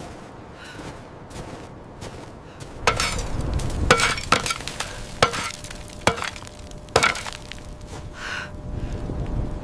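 A series of sharp cracks or knocks, roughly one a second from about three seconds in, over a low rumbling noise.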